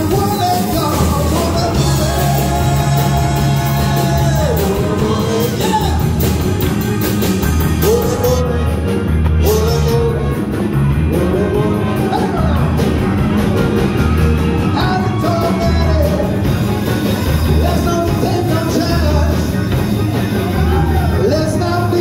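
Live big band playing an upbeat dance number, with a steady beat in the bass.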